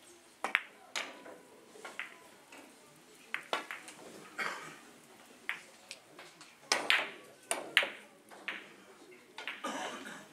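Sharp clicks of three-cushion carom billiard balls: cue tips striking cue balls and balls knocking into each other and the cushions. There are about a dozen clicks at uneven intervals, the loudest cluster a little past the middle.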